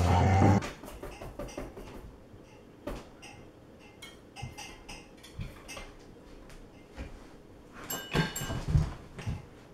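Spoon clinking and scraping against a glass bowl in scattered light clinks, with a louder cluster of clinks near the end. A loud steady sound cuts off about half a second in.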